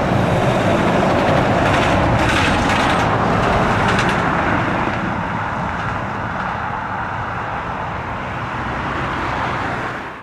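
Jet airliner engine noise: a loud, steady rush with a low hum underneath.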